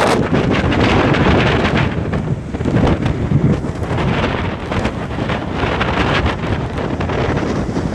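Stormy wind at sea buffeting the microphone: a loud, gusting rush with no steady tone, swelling and easing several times.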